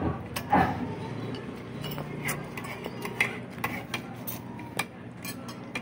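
Scattered clinks and taps of spoons and forks against plates and bowls during a meal, irregular and short, over a low steady hum.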